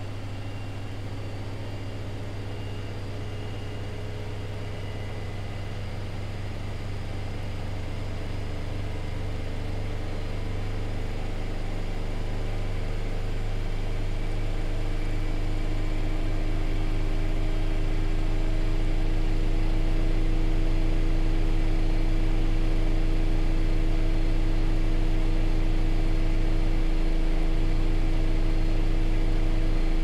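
Bosch Exclusiv Maxx Comfort WFR160A front-loading washing machine in its final spin, the drum speeding up toward 1600 rpm. The motor and drum hum grows steadily louder over the first twenty seconds or so, then holds steady.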